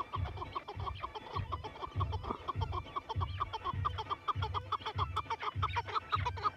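Chukar partridge calling: a fast, continuous run of short clucking notes, several a second, with a low pulsing beneath about every two-thirds of a second.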